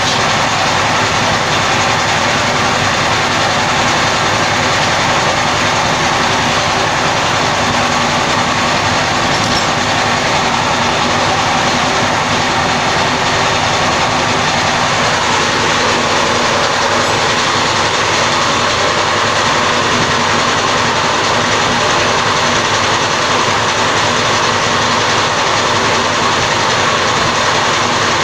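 Large diesel engine running steadily, a loud continuous drone with a dense rumble and whine that hardly changes.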